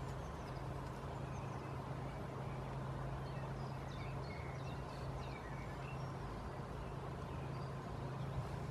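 Steady rain falling on and around a wooden goat house, an even hiss with a low steady hum beneath it. A few faint high chirps come through in the middle.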